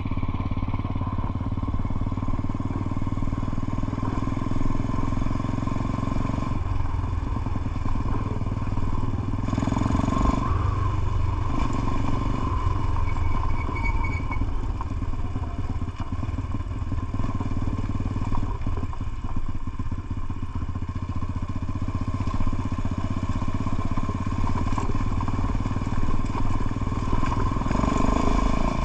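Motorcycle engine running steadily, its level and pitch changing only slightly.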